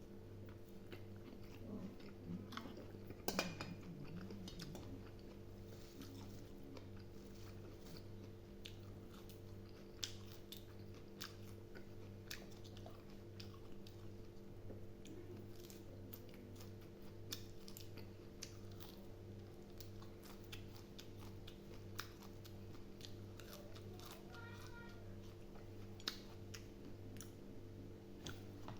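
Faint chewing and wet mouth clicks of someone eating boiled pig intestines, with the odd sharper click, over a steady low hum that pulses about one and a half times a second.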